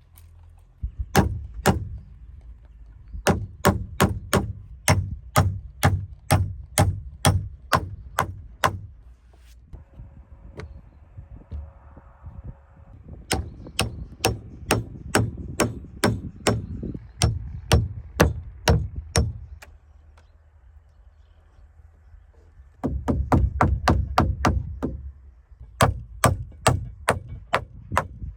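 Hammer blows on timber in three runs of quick, sharp strikes, about two to three a second, with short pauses between the runs.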